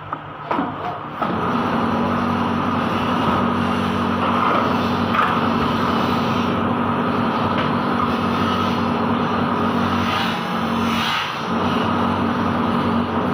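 A few clunks, then an engine starts just over a second in and runs steadily at an even speed, dipping briefly near the end.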